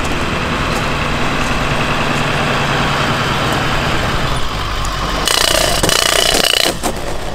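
Pickup truck engine running steadily as the truck moves off pulling a trailer. About five seconds in, a loud rushing hiss lasts about a second and a half.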